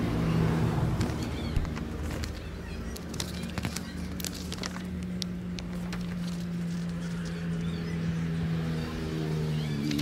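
Background music of sustained low notes, changing chord near the end, with paper rustling and crackling as the pages of a printed manual are turned.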